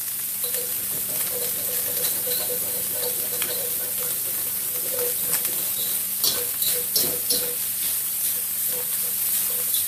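Ground sausage browning in a little oil in a skillet, sizzling steadily while a ground-meat separator stirs and breaks it up, scraping against the pan. There is a cluster of sharper scrapes about six to seven and a half seconds in.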